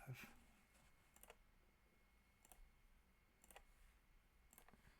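Near silence with four faint, sharp clicks about a second apart.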